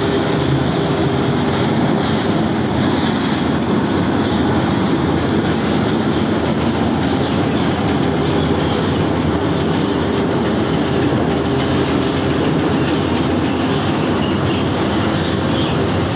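Mill machinery running steadily and loudly: a continuous mechanical clatter with a constant hum under it.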